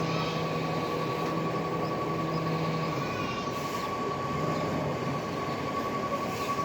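Recycling truck running, with a steady high-pitched tone held throughout and a low hum that drops out about three seconds in.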